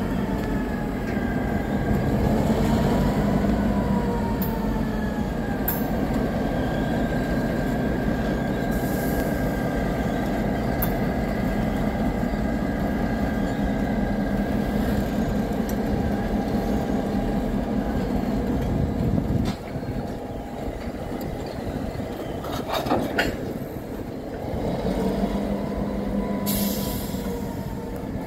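Two CN diesel locomotives passing slowly, their engines running with a steady hum. After about twenty seconds this gives way to the quieter rolling of a boxcar and tank car, with a brief sharp noise a few seconds later.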